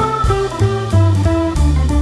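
Background music: a guitar plays a melody of short notes over a steady bass line.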